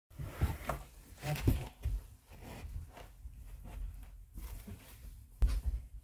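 Footsteps and thuds of a person in boots moving about on a rug close to the microphone, a few irregular low thumps with light rustling between them.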